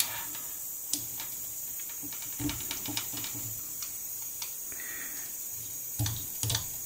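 Irregular small clicks and taps of stiff wire being hooked through and bent around a transformer's solder-lug terminals, over a steady faint hiss.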